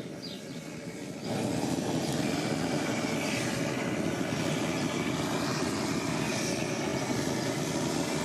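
Propane gas torch (burner) running with a loud, steady roar while singeing the hair off an animal's head and hooves. It gets louder about a second in and then holds steady; terribly noisy.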